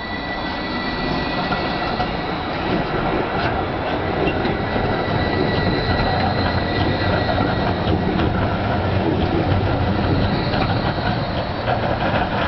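Articulated city tram passing close and running through a curve: steady rumble of steel wheels on the rails, with a thin high wheel squeal early on and scattered clicks from the wheels later.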